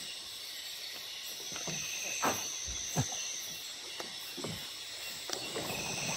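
Night insects chirring steadily, with two sharp knocks from the boat's hull a little over two and three seconds in and a few lighter knocks after.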